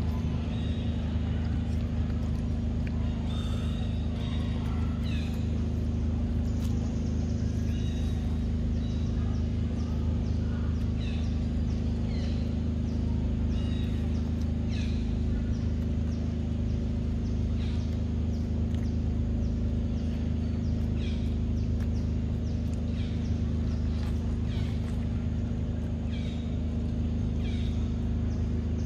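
A steady, low mechanical drone like an idling engine, unchanging throughout, with short high chirps that fall in pitch repeating about once a second over it.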